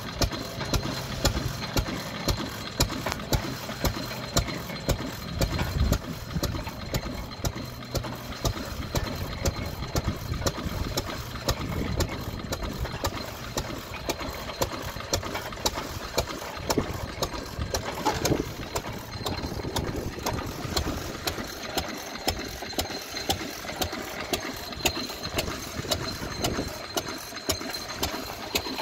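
Champion 6 hp stationary oil engine running steadily, with a sharp beat roughly every half second, driving a belt-driven water pump.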